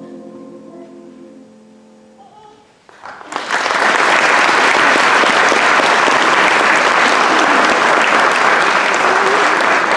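The last held chord of a mixed choir with piano fades away, and about three seconds in the audience breaks into loud, steady applause.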